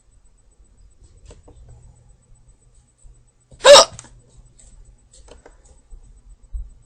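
A girl's single hiccup, a short, loud voiced 'hic' about halfway through, with faint low rumble and light clicks around it.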